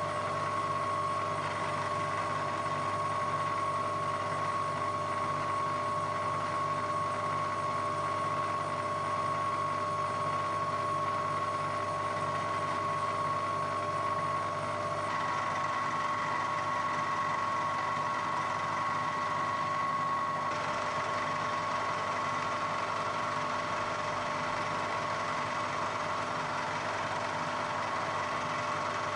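Milling machine running, with a large end mill cutting a radius into a block of steel: a steady machine hum with a constant high whine. The sound shifts about halfway through, and a higher tone stays for several seconds.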